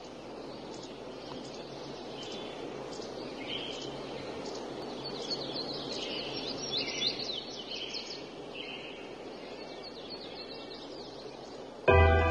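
Many small birds chirping and calling over a steady background hiss, a morning ambience. Music starts abruptly near the end.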